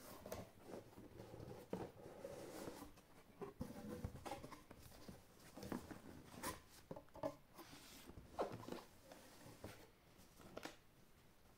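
Quiet handling of a cardboard router box: flaps opening, the inner cardboard tray and paper leaflets sliding and rustling, with scattered light taps and scrapes.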